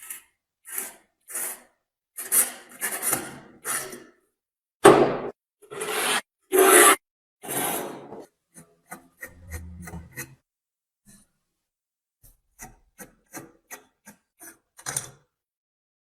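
Hand rubbing or rasping strokes, as of filing or scrubbing rust off metal parts: separate long strokes at first, then quicker, shorter strokes in the second half.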